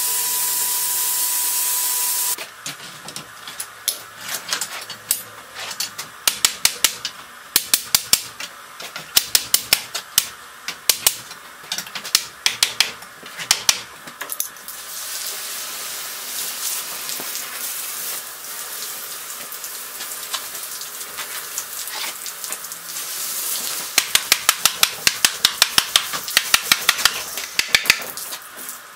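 Hammer blows on a hot steel buggy tire as it is driven down onto the wooden wheel's rim, in quick runs of sharp strikes, with the hiss of water and steam as the tire is cooled.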